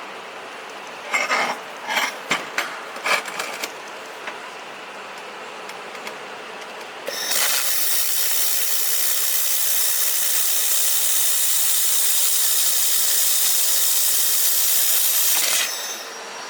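A few sharp clinks and knocks of metal workpieces being handled. Then about seven seconds in, a handheld air-cooled fibre laser welder welding carbon steel starts a steady, loud high hiss that lasts about eight seconds and cuts off sharply near the end.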